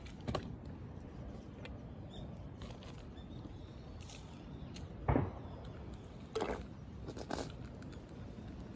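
Cats eating kibble and wet food from a dish: a few scattered knocks and crunches, the loudest a thump about five seconds in.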